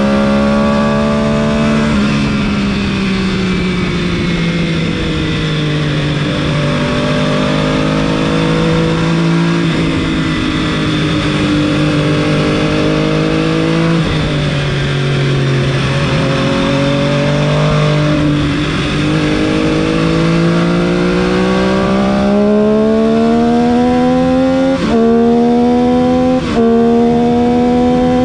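MV Agusta F3 675's inline three-cylinder engine heard from on board, its pitch falling and rising through corners and straights. Near the end it shifts up twice, the pitch dropping sharply with a brief dip in sound before climbing again; the electronic quickshifter was not working on these laps.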